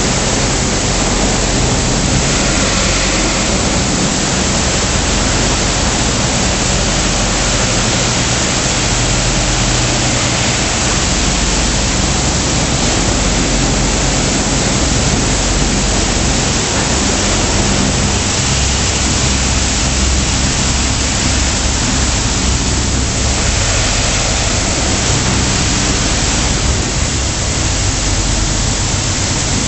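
Automatic tunnel car wash running: a loud, steady rush of water spray jets over a low machinery hum.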